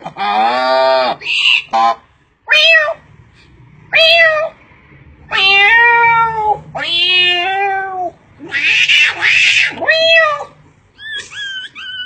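A man's voice imitating a cat: a string of meows, some short and some drawn out for about a second, with a breathy noisy burst about nine seconds in. Near the end a rapid, stuttering call begins.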